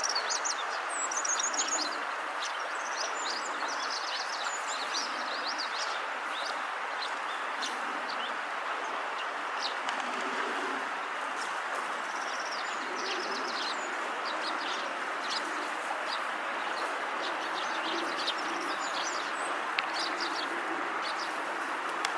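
Eurasian tree sparrows chirping: short, high chirps in loose clusters, heaviest near the start and again in the second half, over a steady background rush.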